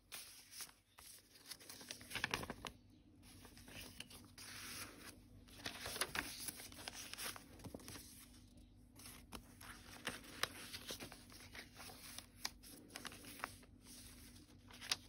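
Paper pages of a handmade junk journal being turned and handled: soft rustling and light crinkling in several short bouts.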